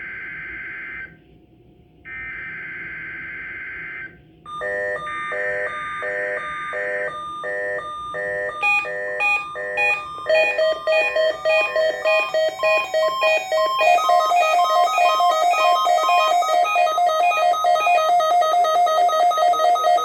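NOAA Weather Radio weekly-test SAME header bursts sound as a harsh two-tone digital buzz, in bursts of one to two seconds with a short gap between them. About four and a half seconds in, a Midland weather-radio receiver's alert alarm starts over the last burst. It is a rapid pulsing multi-tone beeping that gets louder in steps and keeps going.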